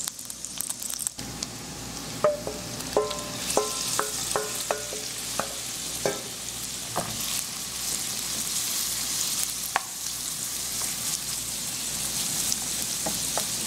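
Diced onion and garlic, then seasoned fish cubes, sizzling in hot oil in a non-stick frying pan, with a steady hiss. A quick run of light ringing taps comes a couple of seconds in, and a wooden spoon stirs the pan near the end.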